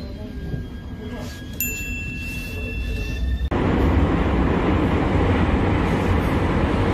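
Metro train heard from inside the carriage. First a faint electric whine rises slowly in pitch, with a high beep lasting about a second and a half. About halfway through, the sound jumps abruptly to a much louder, steady rumble of the train running.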